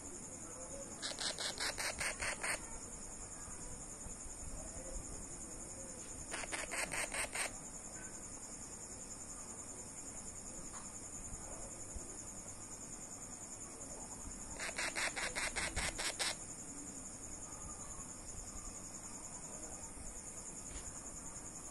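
Crickets trilling steadily, a thin high buzz under everything. Three times, about a second in, near seven seconds and near fifteen seconds, a louder burst of rapid even ticking runs for one to two seconds at about eight pulses a second.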